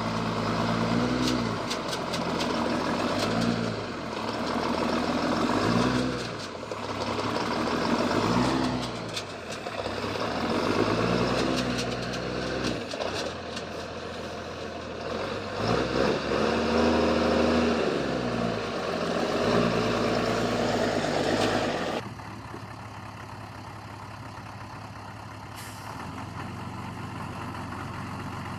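Heavy machine engine revving up and dropping back over and over as it works, with knocks and clanks throughout. About three-quarters of the way in the sound cuts abruptly to a quieter engine running steadily.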